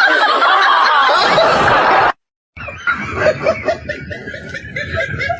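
Canned laugh track of many people laughing, which cuts off abruptly about two seconds in. After a brief silence, a second stretch of laughter begins.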